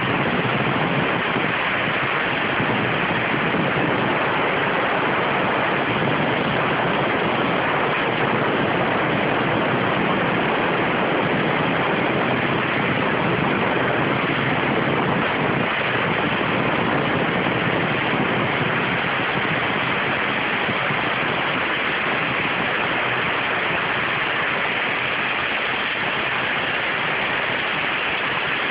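CNC waterjet cutting thin stainless steel sheet: a steady, unbroken hiss of the high-pressure water jet.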